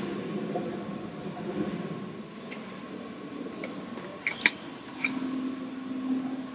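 Steady high-pitched insect chorus, with a few small clicks and a brief clatter about four seconds in as the pot on the wood stove is handled. A low hum joins about five seconds in.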